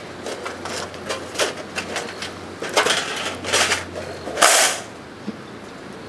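Thin metal plates of a BUNDOK LOTUS folding fire pit clicking and scraping against each other as they are slotted together by hand. There is a string of light taps, then a louder scrape about four and a half seconds in.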